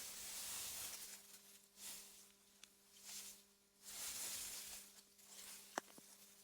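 Faint AI-generated ambience of wind gusting through meadow grass: a hiss that swells and drops away in waves over a steady low hum. A single sharp click comes near the end.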